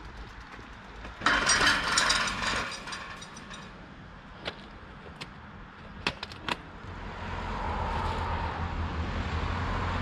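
A car approaching, its engine and tyre noise rising steadily through the second half. Earlier, a loud rattling clatter lasts about two seconds from about a second in, followed by a few sharp clicks.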